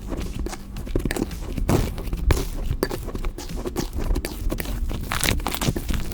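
Slime being squeezed and worked by hand, making a run of irregular sticky clicks and pops.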